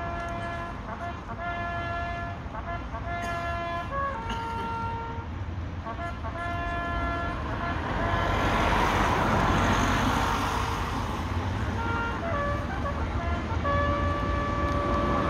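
A bugle sounding a slow military call in long held notes with short pauses between them. About halfway through, the hiss of a vehicle passing on a wet road swells underneath it for a few seconds.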